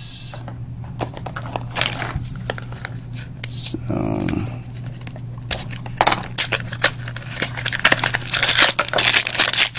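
A small cardboard blind box being slit with a box cutter and its flap torn open by hand: crinkling, tearing and clicking cardboard, busiest in the second half, over a steady low hum.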